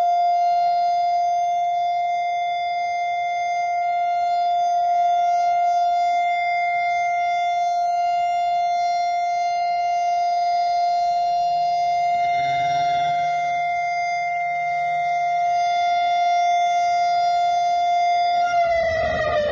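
Siren sounding one steady, unbroken tone, the two-minute memorial siren sounded by hostages' families in imitation of Israel's alert siren. Near the end it starts to fall in pitch as it winds down.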